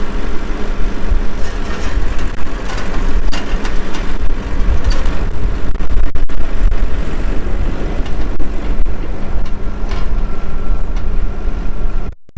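Versatile 150 tractor's engine running steadily as it lifts a hay bale over a fence, with heavy wind buffeting the microphone. The sound cuts off abruptly near the end.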